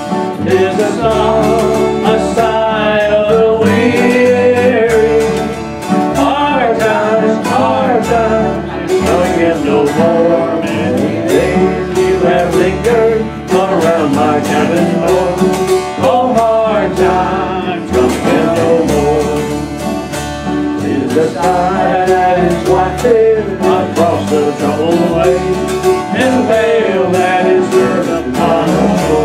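Acoustic string band playing an instrumental break of a slow old-time tune: lap dulcimers strumming and an upright bass plucked underneath, with a lead melody line that bends and wavers in pitch.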